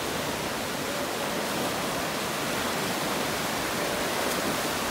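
Surf breaking and washing through the shallows, a steady even hiss of moving water.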